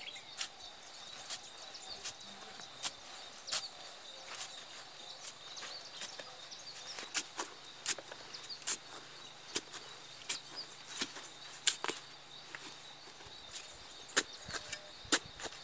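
Wooden digging stick jabbing and scraping into the soil of a yam mound, giving sharp, irregular knocks about once or twice a second, as a yam tuber is dug out by hand.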